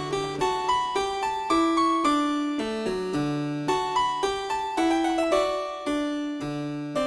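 Background music: a keyboard instrument, harpsichord- or piano-like, playing a melody with bass notes, several plucked notes a second.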